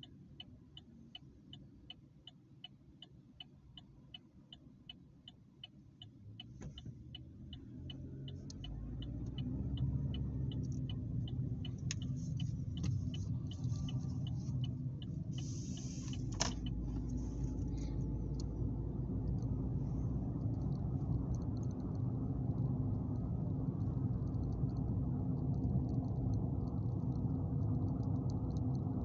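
A car's turn-signal indicator ticking steadily, about three ticks a second, in a quiet cabin while the car waits at a light. After about seven seconds the car pulls away and a steady low rumble of engine and tyres fills the cabin, with a single sharp click about halfway through.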